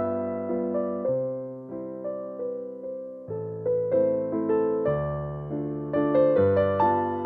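Keyboard music played on a piano-like instrument: struck notes that fade away, a melody over bass notes that change every second or two.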